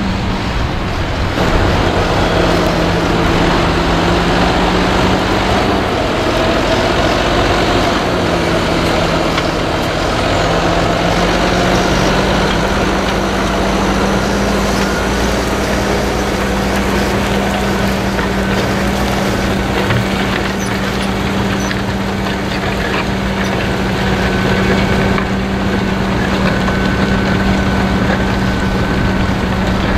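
Fendt 724 tractor's six-cylinder diesel engine running under load while pulling a six-furrow reversible plough. Its note dips slightly about two seconds in, rises back around twelve seconds in, and then holds steady.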